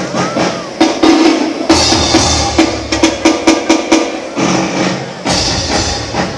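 Filipino Christmas carol music with drums and percussion: a driving beat of sharp strikes, the arrangement changing section every second or two.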